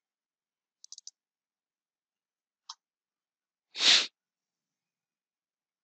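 Computer mouse clicks: a quick run of three faint clicks about a second in and a single click a little before the middle. A short puff of noise follows about four seconds in and is the loudest sound.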